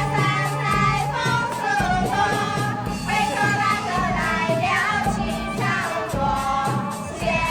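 Music with singing voices over a steady accompaniment.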